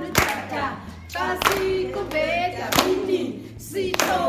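Group of women singing together and clapping their hands, with a few sharp claps standing out about every second and a half.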